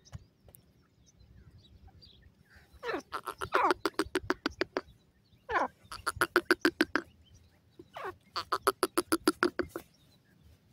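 Grey francolin (teetar) calling in three bouts. Each bout opens with a quick sliding note and runs into a rapid train of repeated notes lasting a second or two.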